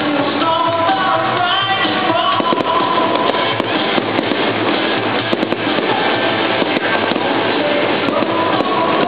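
Music plays throughout while aerial fireworks shells go off over it, several sharp bangs from about two and a half seconds in.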